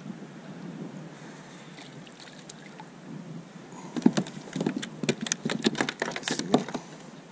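Low water noise around a plastic sit-on-top kayak, then from about four seconds in a fast, irregular run of sharp taps and slaps: a freshly landed fish flapping against the kayak's plastic deck.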